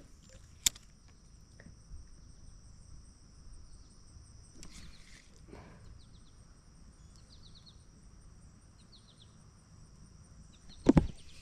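Insects droning in a steady high tone, with a few short chirp trills in the middle. There is a sharp click about half a second in and a louder knock just before the end.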